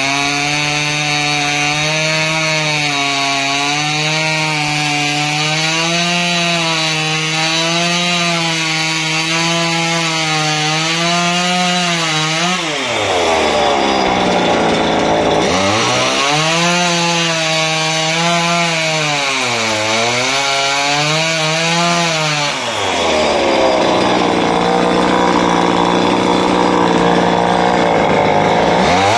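Small two-stroke chainsaw running at high revs while its chain cuts into a wooden block, the pitch wavering as the load changes. About halfway through, and again about three quarters through, the engine drops back toward idle and then revs up again.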